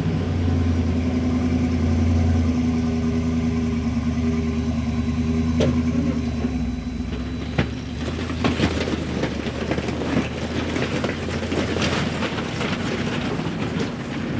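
An engine running steadily, strongest in the first few seconds and easing off after about six or seven seconds, with scattered clicks and rattling after that.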